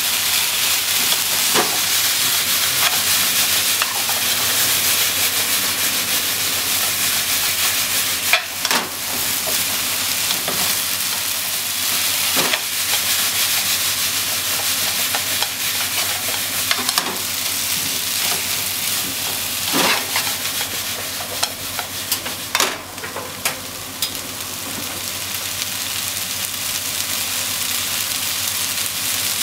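Potatoes, shimeji mushrooms and minced meat sizzling steadily in an oiled nonstick frying pan while long wooden cooking chopsticks stir them, knocking and scraping against the pan every few seconds. The stirring stops near the end, leaving only the sizzle.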